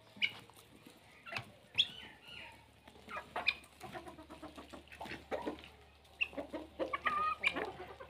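A flock of domestic hens clucking while feeding, with many short calls overlapping and coming irregularly throughout.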